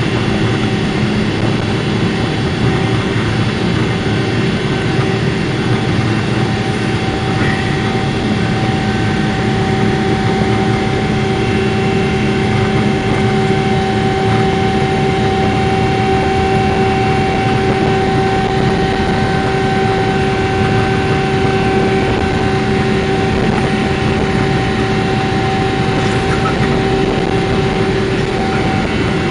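Aircraft in flight, heard from aboard: a steady, even engine and airflow roar with a few steady hum tones running through it, unchanged throughout.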